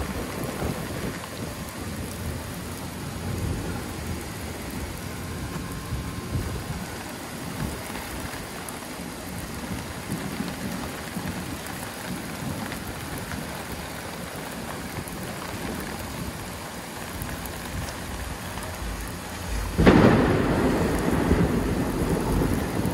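Heavy rain pouring steadily during a thunderstorm. Near the end a sudden loud thunderclap breaks in and keeps rolling.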